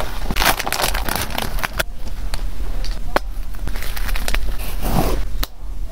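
Plastic bubble-wrap pouch crinkling and rustling as it is pulled open and an item is unwrapped by hand, with a few sharp clicks.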